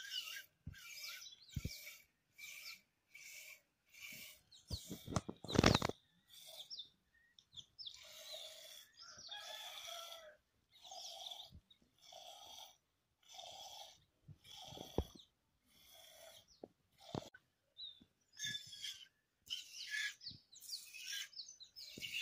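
Cow being milked by hand: jets of milk squirting into a steel pail in an even rhythm, about three squirts every two seconds. About six seconds in there is a single louder knock.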